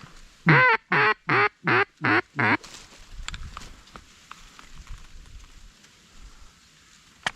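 Mallard duck call blown by a hunter: a quick series of six loud quacks, each bending down in pitch, the first the loudest, in the first two and a half seconds.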